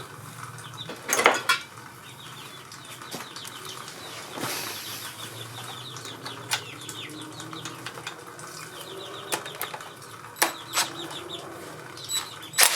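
Metal tools clicking and clinking against a motorcycle engine while a bolt on the gear shift linkage is held and worked loose, a few sharp clinks standing out over faint, quick peeping of young chickens.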